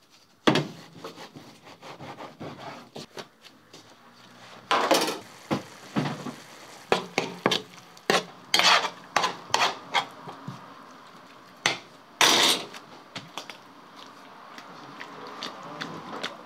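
Sharp, irregular knocks and scrapes of kitchen utensils: a knife cutting through stacked thin flatbread on a board, then a metal spatula clattering and scraping minced meat across a wide steel pan.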